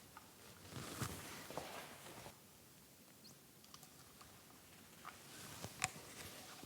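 Faint handling noises while bicycle suspension fork parts are worked on by hand: a second or so of rustling with light clicks, then a few scattered sharp clicks, the loudest about three-quarters of the way through.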